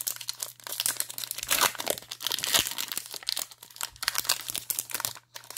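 Upper Deck hockey card pack's wrapper crinkling and tearing as it is handled and ripped open: a dense run of crisp crackles.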